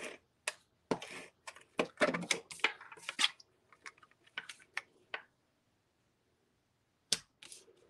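Tape runner rolled across cardstock and the paper layer handled and pressed down: a run of short clicks and scratchy taps for about five seconds, then a few more clicks near the end.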